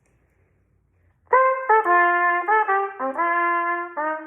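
Trumpet playing a melodic phrase of sustained notes with brief breaks between them, starting about a second in after a near-silent pause. The passage is the spot that calls for B naturals rather than B flats.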